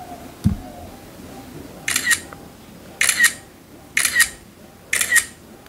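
iPhone camera shutter sound playing four times about a second apart, each a quick double click, as photos are taken with silent mode off. A brief low thump about half a second in.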